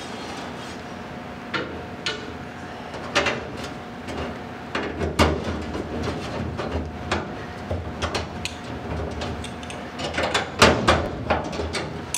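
Clicks, knocks and light metallic clatter of aluminium tube braces and Cleco sheet-metal fasteners being handled and pushed into place on an aluminium panel, with a burst of quick knocks near the end.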